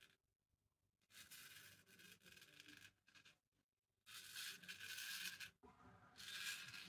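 Shavette straight razor scraping through lathered beard stubble in several faint strokes, in three runs with short pauses between them.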